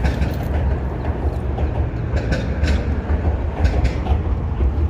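Wind buffeting the microphone in a continuous, choppy low rumble, with a few brief swishes now and then.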